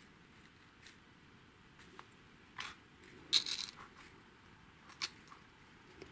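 Faint rustling and light clicks of sequin maple leaves on wire branches being handled, with the loudest crinkle a little over three seconds in.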